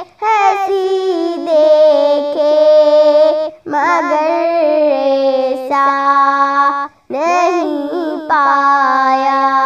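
A young girl singing a naat, a devotional poem in praise of the Prophet Muhammad, with no accompaniment: long held, wavering notes in three sustained phrases, with quick breaths between them.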